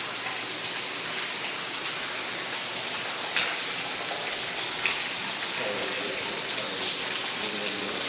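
Steady hiss of running and dripping water, with a couple of sharper drips or splashes about three and a half and five seconds in.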